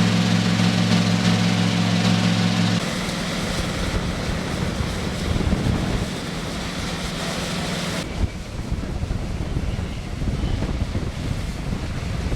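A steady engine hum over a loud rushing noise. The hum stops abruptly about three seconds in, and the rushing noise goes on, turning thinner and quieter after about eight seconds.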